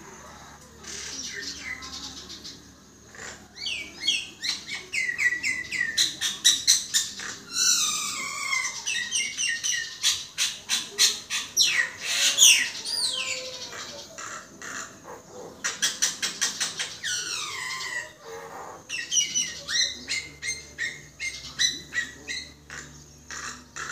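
Common myna singing a varied, jumbled song of rapid clicks, rising and falling whistles and chattering notes, in several runs broken by short pauses.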